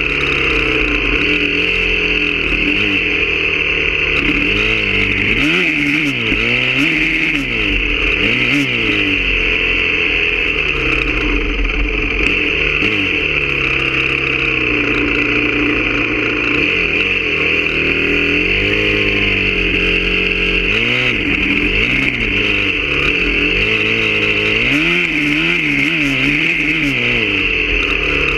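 Honda CRF250R's single-cylinder four-stroke engine being ridden off-road, its revs rising and falling again and again as the throttle is opened and shut, with quick swings around 5 to 9 seconds in and again near the end.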